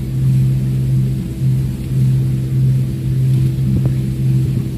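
A canal cruiser's engine running steadily under way, a constant low drone.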